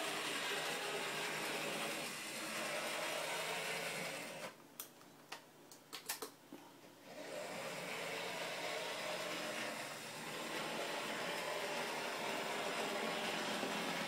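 Steady whirring of HO-scale model trains running on a layout: small electric motors and wheels on the track. About four and a half seconds in it drops away for a few seconds, leaving a handful of sharp clicks, then resumes.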